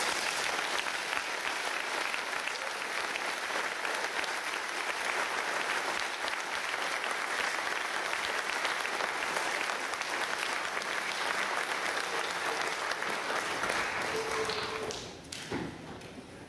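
Congregation applauding steadily, dying away about fifteen seconds in.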